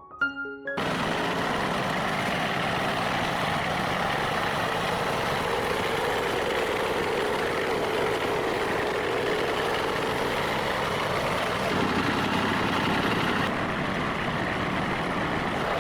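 A few piano notes at the very start, then a farm tractor engine running steadily.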